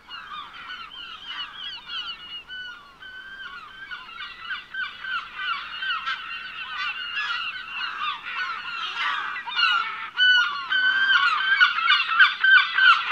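A flock of birds calling: many short, overlapping calls in a continuous chorus that grows louder about ten seconds in.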